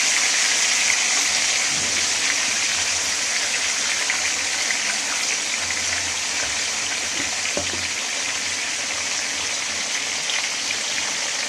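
Marinated chicken drumsticks deep-frying in hot oil in a kadhai, a steady, even sizzle of bubbling oil. The drumsticks are being half-fried, not cooked through.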